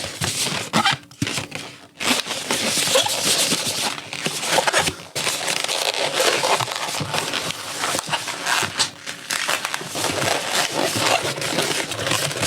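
Continuous crinkling, crackling noise made of many small clicks, with a short drop in level about two seconds in.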